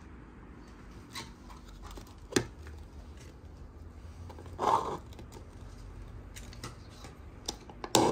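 Clear plastic cups and dome lids being handled, with wooden sticks pushed through the lids: a few sharp plastic clicks and a short louder crackle a little past halfway, over a low steady hum.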